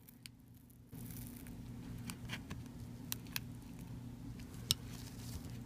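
Gloved hands prying at an iPod mini's aluminium casing, giving a few faint, scattered clicks and ticks over a steady low hum that comes in about a second in.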